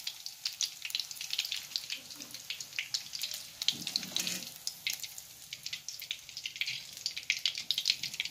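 Sliced onions and curry leaves frying in hot coconut oil in a wok: a steady sizzle full of small, quick pops and crackles.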